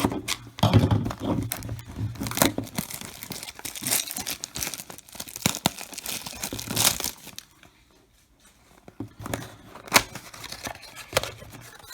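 A trading-card mini box being opened by hand: cardboard and wrapping tearing, and foil card packs crinkling and rustling, with a quieter pause partway through and a sharp click about ten seconds in.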